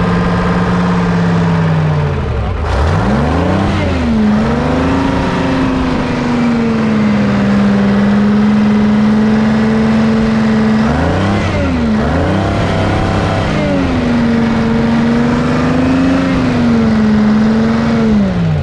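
1978 Hein-Werner excavator's diesel engine running under governor control as the throttle is worked. Its speed sags and climbs back twice, then starts to fall near the end.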